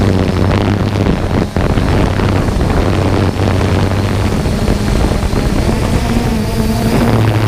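3DR Solo quadcopter's motors and propellers running in flight: a steady buzz with a low hum underneath, dipping briefly about a second and a half in.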